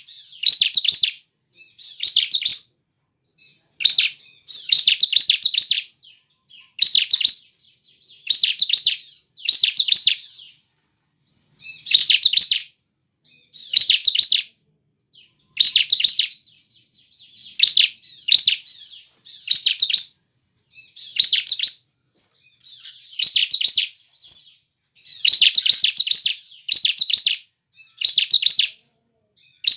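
Bar-winged prinia (ciblek) song: short bursts of rapid, high, repeated chirping notes, one phrase every second or two with brief gaps between.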